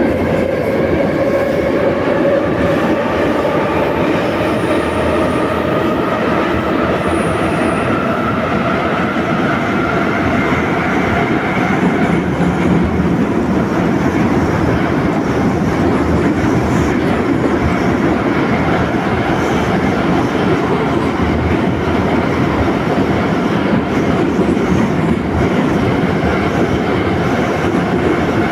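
Moscow metro 81-714.5M car running, heard from inside the passenger saloon. Through the first dozen seconds the traction motors and gears give a whine that rises slowly in pitch as the train gathers speed. After that the wheels on the rails give a steady loud running noise.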